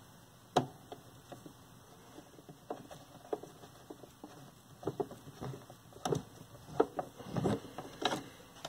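Irregular light clicks and taps of a screwdriver and small hardware being handled in a television chassis: one sharp click about half a second in, then a busier cluster of taps in the last few seconds.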